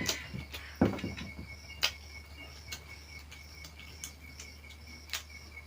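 Insects chirping in a steady, evenly pulsing high trill, with a few sharp clicks and a knock about a second in.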